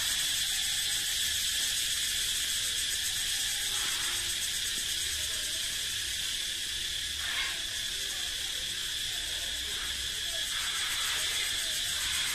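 Chorus of cicadas singing, a steady high-pitched drone with a fast pulsing texture that fills the forest.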